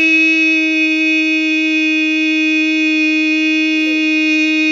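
A person's voice holding one long, steady note: a drawn-out "three" of a countdown.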